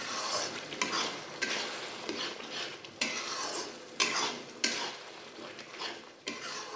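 Metal spatula stirring and scraping thick onion-tomato masala around a kadhai, the masala sizzling in hot oil, with a sharp scrape of the spatula against the pan about every second. The masala is being fried until the oil separates.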